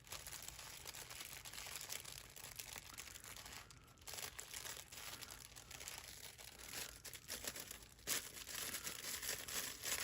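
Small plastic bags of diamond-painting drills crinkling and rustling as they are handled, a steady crackle of fine ticks that pauses briefly about four and eight seconds in.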